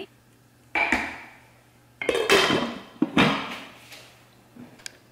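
Proctor Silex slow cooker: a wooden spoon knocks against the ceramic crock, and the glass lid is set down and clatters into place. There are a few separate knocks, each ringing briefly, then light clicks near the end.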